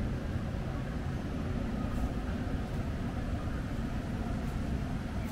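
Wind buffeting the microphone: a steady, uneven low rumble with nothing else clearly standing out.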